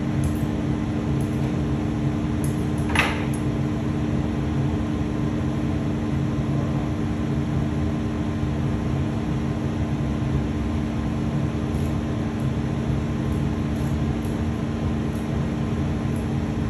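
Steady hum of glass-studio machinery, with two held low tones under an even rushing noise. One short tap sounds about three seconds in.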